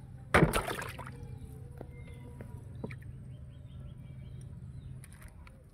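A fish dropped into a plastic tub of water: a short splash about half a second in, followed by faint drips and small knocks as it settles in the water.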